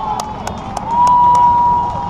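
Spectators cheering: a few sharp claps, then from about a second in one loud shouted call held on a single pitch for about two seconds.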